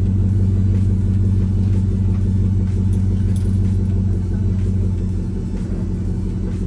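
Chevrolet pickup truck's engine idling steadily with a deep, loud rumble, easing slightly about two-thirds of the way through.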